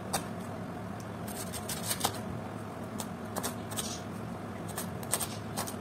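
Kitchen knife slicing a cabbage into thin shreds on a cutting board. It makes an irregular run of crisp cuts and taps, about three a second, often in quick clusters.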